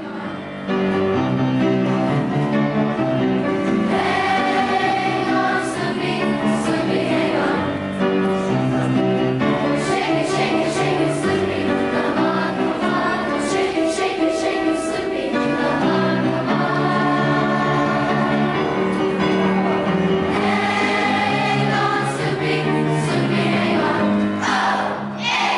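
Children's choir singing, accompanied by piano.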